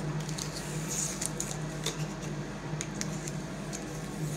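Blue painter's tape being peeled off a painted valve cover by hands in nitrile gloves: scattered soft crackles and rustles, over a steady low hum.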